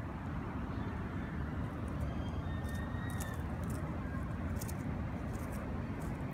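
Steady low outdoor rumble, with faint high ticks through the middle and a faint thin whistle about two to three seconds in.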